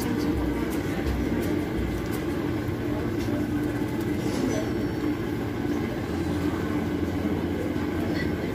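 A steady low rumble, with a few light clicks and splashes as raw wontons are dropped by hand into a pot of water heating on the stove.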